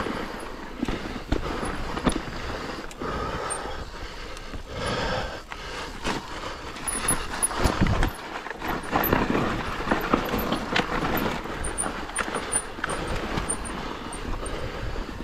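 Mountain bike riding down a rough dirt trail: tyres rolling over the ground, with frequent knocks and rattles from the bike over bumps.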